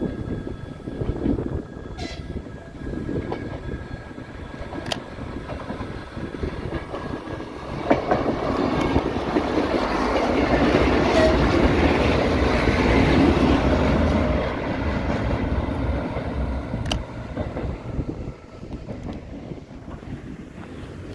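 RA3 diesel multiple-unit train passing close by. Its engine and wheels build to a loud rumble about eight seconds in, peak as it goes past, then fade as it pulls away.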